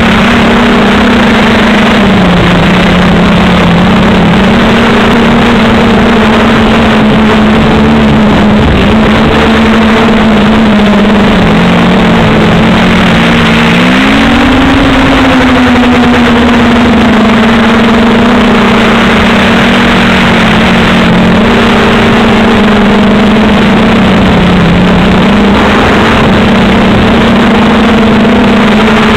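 Multirotor drone's motors and propellers, heard loud and close from a camera mounted on the craft: a steady hum that dips in pitch a few times and swoops up about halfway through, over a thick rush of airflow noise.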